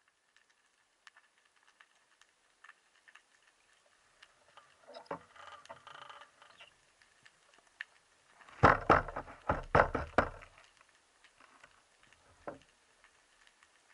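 Underwater sound picked up by a camera on a speargun: faint scattered clicks and crackles, with a stretch of noisy rushing about five seconds in and a cluster of several loud, deep noisy bursts around nine to ten seconds, and one more shortly after.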